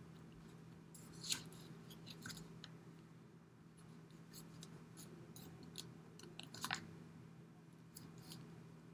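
Faint taps and rubbing of hands pressing and rolling play dough on paper on a tabletop, with a couple of slightly louder taps, one about a second in and one about two-thirds through. A low steady hum runs underneath.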